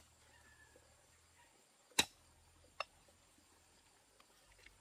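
A large kitchen knife knocking on a wooden chopping block twice: a sharp knock about two seconds in and a lighter one just under a second later.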